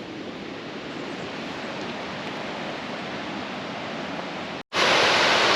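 Rushing creek water, a steady dense hiss that slowly grows louder. About four and a half seconds in it cuts out for an instant, then comes back louder as the close rush of a small waterfall.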